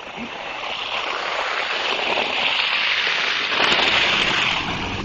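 A vehicle passing on a snowy, slushy street: a tyre hiss swells over about four seconds, peaks, then fades as it goes by.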